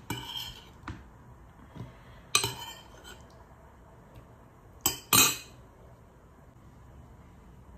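Metal spoon clinking against a ceramic bowl and a glass tumbler as food is spooned from the bowl into the glass: a handful of separate sharp clinks, the loudest about two and a half seconds and five seconds in.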